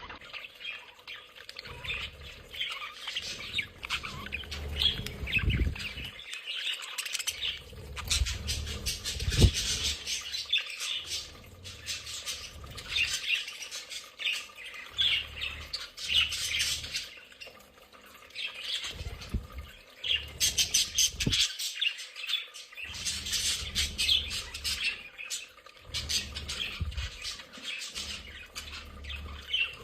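A colony of budgerigars chirping and chattering all at once, in a busy, continuous warble with squawks. Patches of low rumble and a few low thumps come and go under the chatter.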